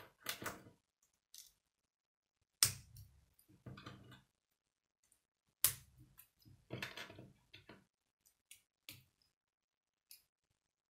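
Plastic K'nex rods and connectors being handled and snapped together: a series of sharp clicks, with short spells of plastic pieces rattling and rubbing in between.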